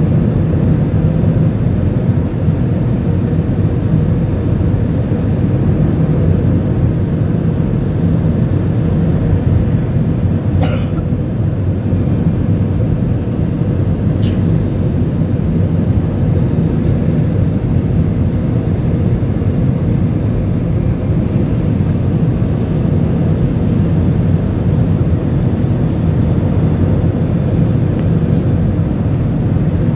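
Steady low rumble of a jet airliner's engines and airflow heard inside the cabin during the descent to landing. A brief sharp click sounds once about eleven seconds in.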